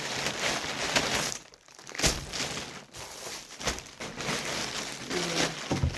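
Packaging crinkling and rustling in irregular bursts as a parcel is unpacked by hand, with short pauses.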